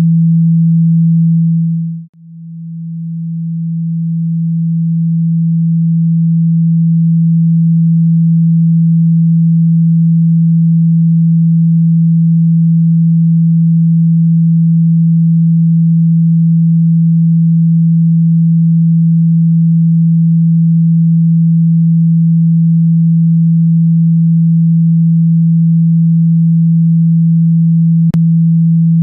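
Steady low pure tone of the kind played through a phone's speaker to shake out water and dust caught in the grille. It drops out about two seconds in and swells back over the next few seconds, with a faint click near the end.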